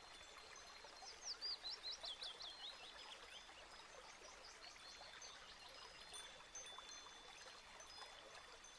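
Faint outdoor nature ambience: a steady water-like hiss, with a quick run of about ten high chirps falling in pitch about a second in.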